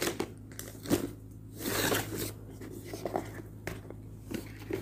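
Cardboard and paper packaging of a tablet box being handled by hand: scattered light clicks and taps, with a longer rustling scrape a little under two seconds in.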